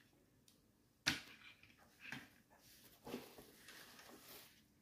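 Quiet handling noises: a light knock about a second in as a toy bus is set down on the table, then a few soft knocks and the crinkle of bubble wrap in a cardboard box as a hand reaches in.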